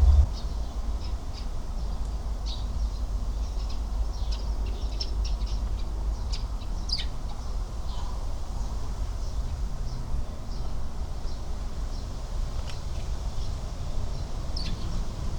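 Small birds chirping in short, scattered calls, some sliding down in pitch, over a steady low rumble.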